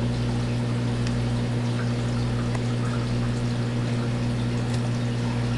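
Aquarium filter running: a steady trickle of falling water over a steady low hum.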